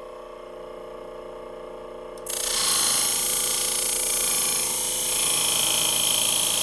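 A sharpening machine's motor runs with a steady hum. About two seconds in, the steel shear blade is pressed to the spinning 600-grit wheel, and a loud, steady grinding hiss begins and holds as metal is ground off the edge to remove a nick.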